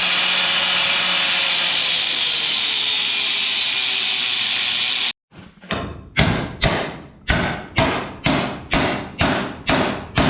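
A power tool runs steadily with a hissing, grinding noise and cuts off abruptly about five seconds in. It is followed by a string of hammer blows, roughly two a second.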